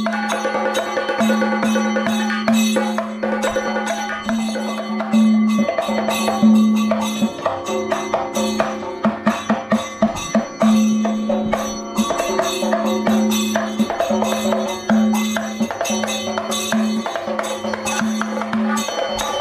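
Live Kathakali accompaniment: a maddalam barrel drum played by hand under a voice singing long held notes, with a fast flurry of drum strokes in the middle.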